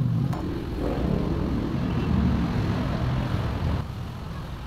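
A motor running with a steady low rumble, with a single sharp click just after the start; the rumble eases a little near the end.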